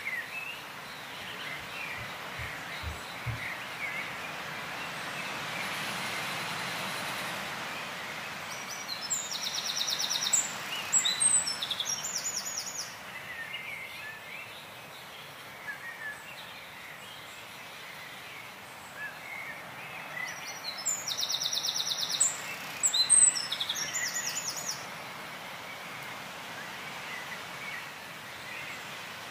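Small birds chirping over a steady background hiss, with two louder songs of rapid, high trilled notes, one about a third of the way in and one about three quarters of the way in.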